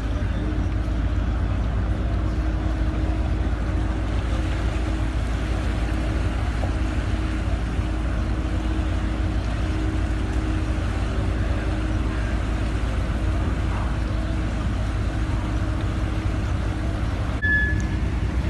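A large engine running steadily, a continuous low rumble with a constant hum.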